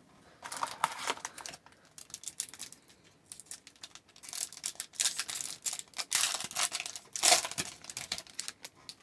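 A plastic trading-card pack wrapper being torn open and crinkled, heard as a run of short rustles and scratchy tears that grow louder and denser in the second half.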